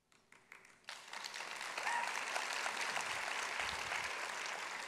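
Audience applauding: a few scattered claps, then the crowd joins in about a second in and the applause holds steady.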